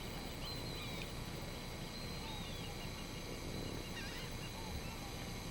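Oystercatchers calling faintly from a nearby flock: scattered short whistled calls, including a quick run of notes about halfway through, over a low steady background hiss.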